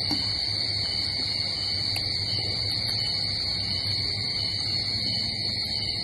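Insects chirring in a steady high-pitched drone that does not let up, over a low hum, with a few faint clicks of eating utensils.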